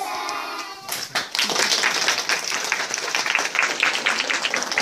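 A group of young children singing together for the last second of a song, then an audience bursting into fast, dense clapping and applause that fills the rest.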